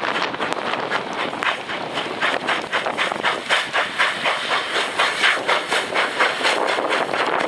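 Exhaust of a K-36 class 2-8-2 narrow-gauge steam locomotive chuffing in a steady rhythm of about three beats a second as it works under power, over a hiss of steam. The beats grow louder and sharper partway through as the engine draws near.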